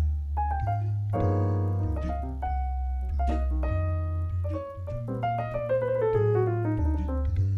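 Keyboard with a piano sound playing a slow, gentle tune: chords and melody notes over held bass notes that change every couple of seconds, with a falling run of notes in the second half.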